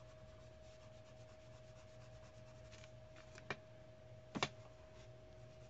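Faint scratching of a wax-based Prismacolor colored pencil shading on paper in light strokes, over a steady faint hum. Two short clicks about a second apart come past the middle.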